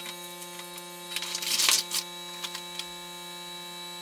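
Hot air rework station running: a steady electrical hum with a thin high whine, and a short burst of hiss about a second and a half in.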